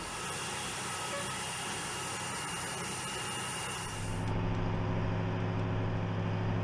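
Heavy vehicle engine running as a fire truck drives slowly up a metal loading ramp. About four seconds in, the sound changes to a louder, steady low engine drone.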